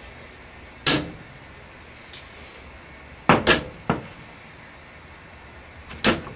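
Tool handles snapping one by one onto a magnetic metal wall holder, each making a sharp clack: one about a second in, a quick double clack and a lighter one midway, and another near the end.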